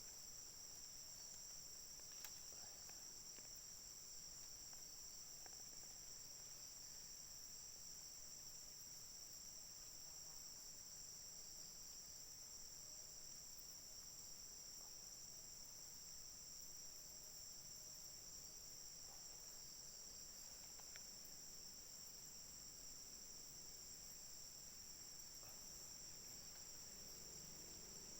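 Faint, continuous high-pitched trilling of insects, two steady tones that hold without a break.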